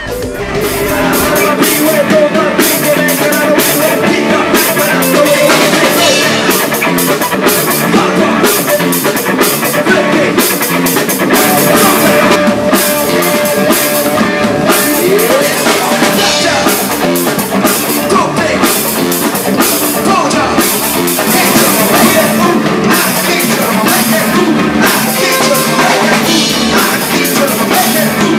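Live rock band playing loud: electric guitar over a drum kit, with a male singer.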